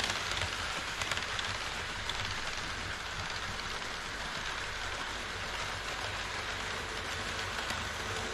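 HO-scale model trains rolling on KATO Unitrack: a steady, rain-like rolling noise of wheels on rail. It eases a little as an E5 Shinkansen set runs away, then builds again near the end as a pair of DD51 diesel locomotives approaches.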